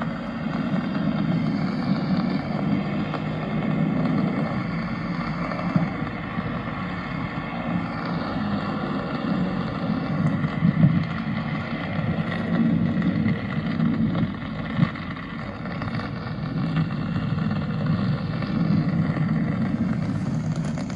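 Steady engine noise of a nearby motor vehicle, with a few sharp knocks now and then.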